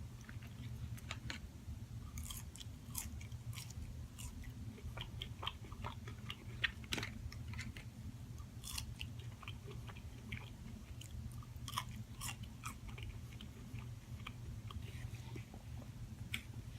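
A person chewing food close to the microphone, with scattered small wet clicks and crunches. A steady low hum runs underneath.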